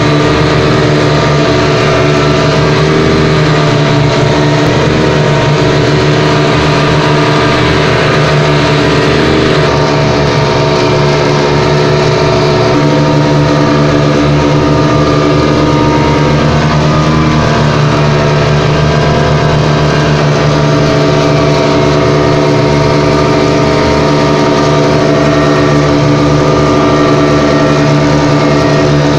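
Speedboat engine running steadily under way at speed, a constant droning note over a rushing hiss, heard from inside the boat's cabin.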